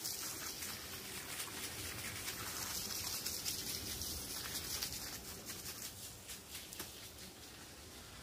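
Water from a garden hose spraying and pattering onto wet grass and ground, a steady hiss that eases off a little near the end.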